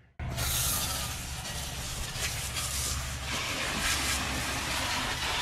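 Garden hose spraying a jet of water onto a truck's alloy wheel and tire to wet it, a steady hiss and splatter that starts abruptly just after the start.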